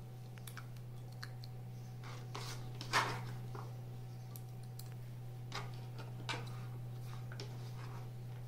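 Scattered soft clicks and small splashes of diced raw mango pieces dropped by hand into tamarind water in a clay pot, the sharpest about three seconds in, over a steady low hum.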